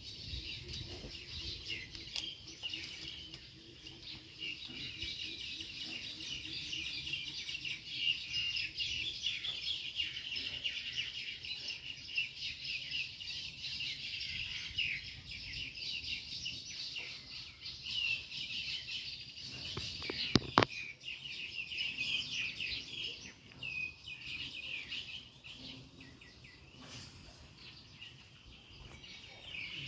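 Many small birds chirping and twittering continuously in a dense chorus. A single sharp click about twenty seconds in is the loudest sound.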